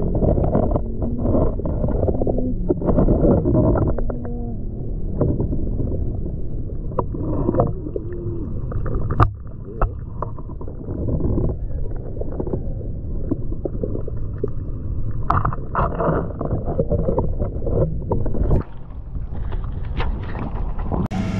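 Muffled rumbling and sloshing of water heard through a submerged camera, with several sharp knocks against the housing.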